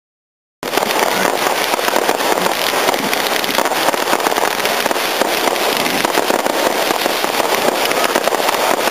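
Fireworks crackling loudly and without a break, a dense rapid patter of tiny pops, starting suddenly just under a second in.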